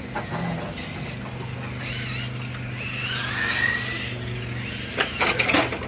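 Brushed-motor electric RC touring cars racing, their motors whining up and down in pitch as they accelerate and brake. A rapid burst of sharp clattering knocks comes near the end.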